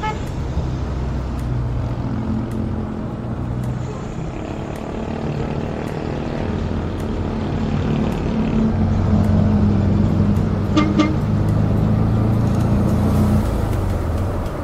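Mikrolet minibus engine running under road noise, its pitch rising and falling as it pulls away and changes speed, growing louder in the second half. A vehicle horn gives two short toots about eleven seconds in.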